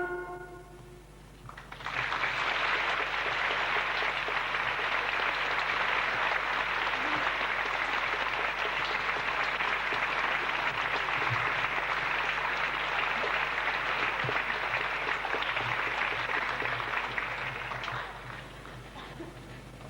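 Audience applauding, breaking out about two seconds in as the orchestra's last note dies away, steady and dense, then thinning out near the end.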